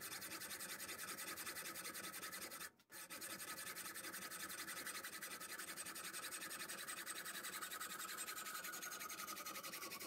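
Hacksaw cutting through an aluminium tube: a steady run of even, rasping strokes, with a short break about three seconds in and a faint ringing tone that slides lower near the end.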